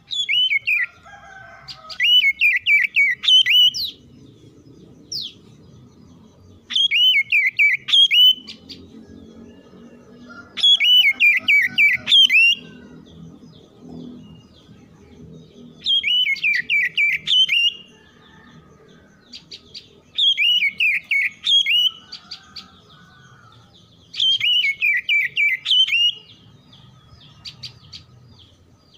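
Oriental magpie-robin song: bursts of rapid, gliding whistled notes about two seconds long, repeated roughly every four seconds, six times over.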